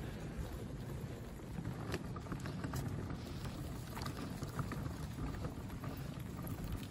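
Footsteps and scattered light taps of people and a small dog walking on an asphalt road, over a steady low rumble.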